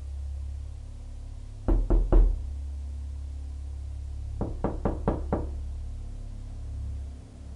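Knocking: three loud knocks, then about two seconds later five quicker, lighter knocks, over a low steady drone.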